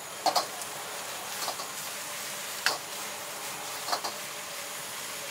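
Metal ladle and spatula clanking and scraping against a wok during stir-frying over a gas flame, under a steady hiss of frying. Sharp clanks come about five times, a double one near the start and then roughly every second.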